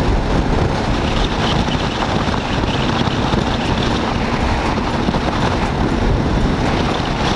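Steady rush of wind on the microphone of a Bajaj Dominar 400 single-cylinder motorcycle riding at speed, with engine and tyre noise beneath it.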